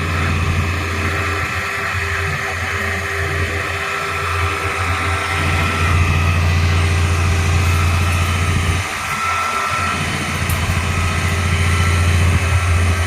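An engine on a construction machine running steadily with a deep, even hum, dipping briefly about nine seconds in.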